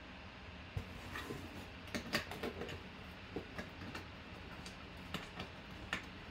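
Cardboard mini-helmet box and cloth drawstring bag being handled on a desk: a scattering of light, irregular taps and clicks, the loudest about two seconds in.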